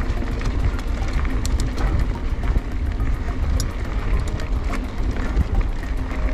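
Mountain bike riding down dry, rocky singletrack: steady wind rumble on the camera microphone, tyres running over loose dirt, and many short sharp clicks and rattles from stones and the bike.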